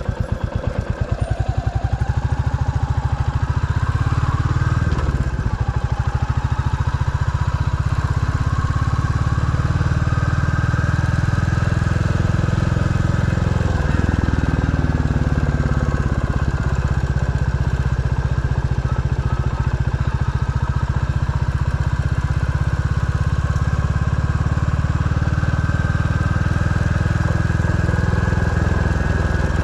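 Vehicle engine running steadily on a dirt byway, its pitch rising and falling a few seconds in and again about halfway through as the revs change.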